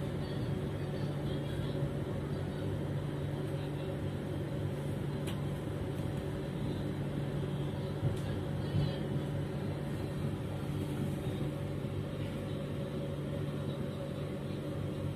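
Steady running noise inside a moving passenger train coach: a constant low hum over a rumble, with a few faint clicks.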